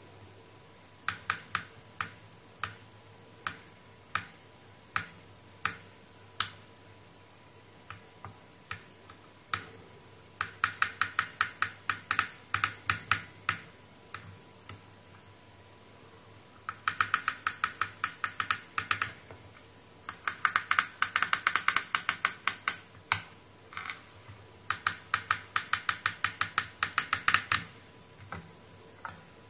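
Light, sharp clicks from a multimeter's metal probe tip tapping and scraping across the solder pads and traces of a circuit board during a continuity check. The clicks come singly at first, then in quick bursts of many clicks a second.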